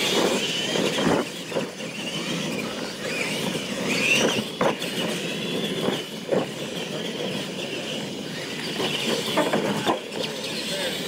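Radio-controlled monster trucks racing on dirt, their motors whining up and down in pitch, with several sharp thuds as the trucks hit and land off jump ramps.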